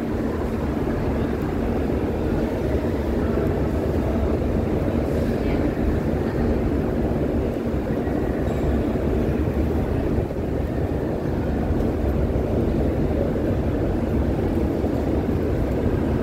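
Steady low rumble of a large, busy indoor hall as a crowd walks through it, with faint voices in the background.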